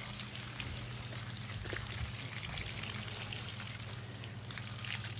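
Steady running, splashing water with a low, even hum underneath.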